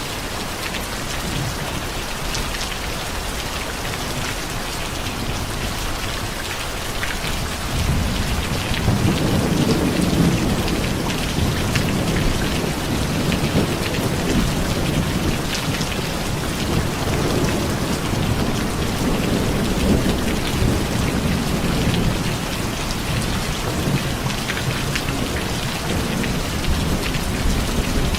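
Steady rain, a dense hiss with scattered drops. About eight seconds in, a long low rumble of thunder builds and keeps rolling on and off through the rest.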